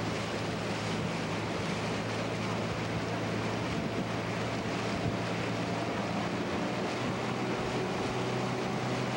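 Small boat's motor running at a steady speed, a low even hum, with water rushing along the hull and wind buffeting the microphone.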